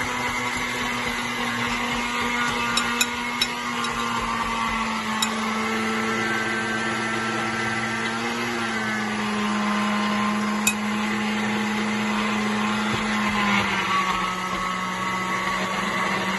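Electric blender grinding rolled oats, its motor running steadily with a few sharp ticks. The motor's pitch drops a little about halfway through.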